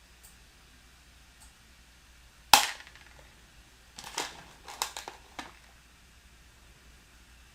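Hard plastic Mega Construx pieces clacking: one sharp, loud click about two and a half seconds in, then a quick run of smaller clicks a little over a second later.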